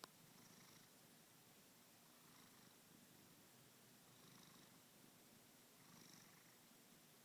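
A sleeping cat snoring faintly, with a soft breath sound about every two seconds. A brief click right at the start.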